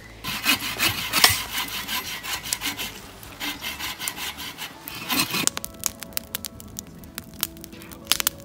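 Hand saws cutting through a log in steady back-and-forth strokes for about five seconds. The sawing then stops and a campfire crackles with scattered sharp pops.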